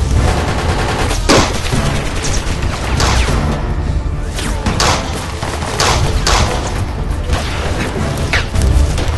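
A firefight: about a dozen single gunshots at irregular spacing, some closer together and some a second apart, over steady background music.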